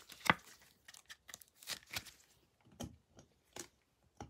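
Light plastic rustling, crinkling and small clicks of a football trading card in a plastic sleeve and rigid holder being handled and set onto a display stand, with the sharpest click about a third of a second in.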